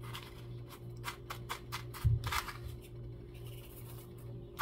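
Kitchen handling sounds: a quick run of light clicks and scrapes, with a dull thump about two seconds in, over a steady low hum.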